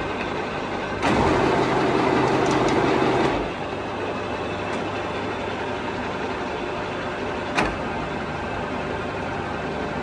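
TOS W100A horizontal boring machine running with a steady electric hum. About a second in, a louder whir starts and lasts about two seconds as the rotary table is turned. A single sharp click follows later.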